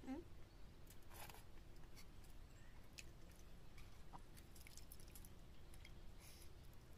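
Faint sounds of eating rice by hand from a brass bowl: a few soft, scattered ticks and clicks of fingers and bangles against the bowl, and chewing, over low room noise.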